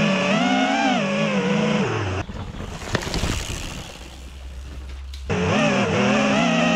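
Quadcopter drone's propellers whining steadily, the pitch rising and dipping as it manoeuvres. For about three seconds in the middle the whine drops out and gives way to a rougher, quieter noise with a few sharp clicks over a low hum, and then the whine returns.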